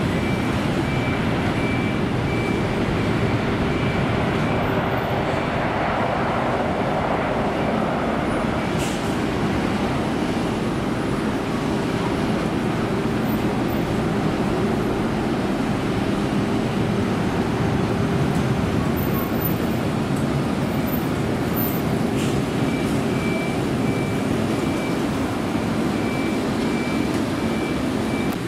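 Boeing 777's twin jet engines at take-off thrust: a loud, steady roar through the take-off roll and climb-out.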